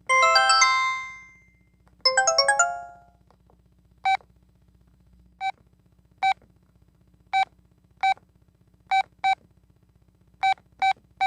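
Telit mobile phone's incoming-message alert: a quick run of bright electronic notes with a ringing tail, played twice. It is followed by about ten short, identical keypad beeps at uneven intervals as the phone's keys are pressed.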